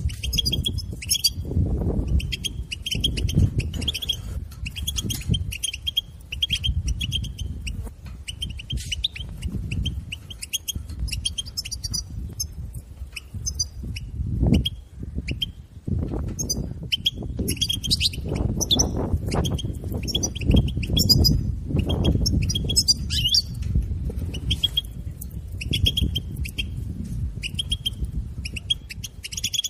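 European goldfinch calling in quick chattering runs of short, high notes, broken by brief pauses. This excited call is played to stir caged goldfinches into singing. An uneven low rumble runs underneath.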